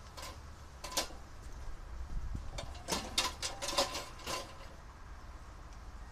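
A few sharp clicks and knocks, one about a second in and a quick cluster around the middle, over a low steady rumble.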